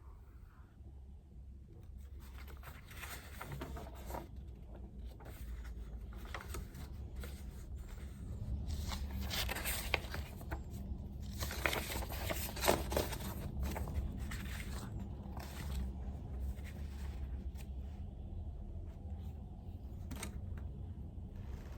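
Pen scratching on paper and paper rustling at a desk: irregular scratchy strokes and rustles, thickest and loudest in the middle, over a steady low hum.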